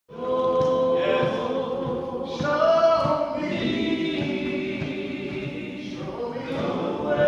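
Gospel vocal group singing in harmony, long held notes sliding between pitches.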